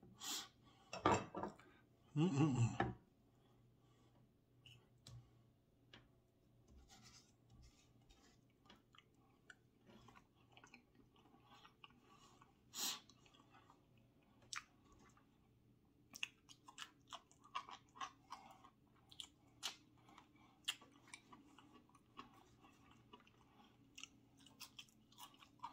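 Close-miked mouth sounds of a person chewing steak, with many small wet clicks and smacks scattered throughout. Two louder sounds come in the first three seconds, the second a short pitched sound lasting under a second.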